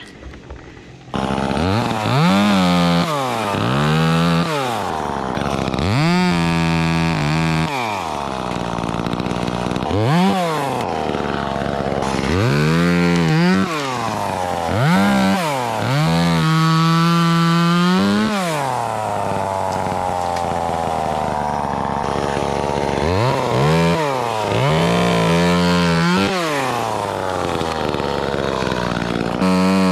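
Chainsaw cutting limbs in a tree, coming in about a second in and revved up and down over and over, with several longer steady full-throttle stretches as it cuts.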